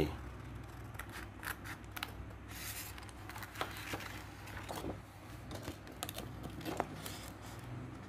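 Scissors cutting through a sheet of white paper: a series of short, irregular snips with some paper rustle between them.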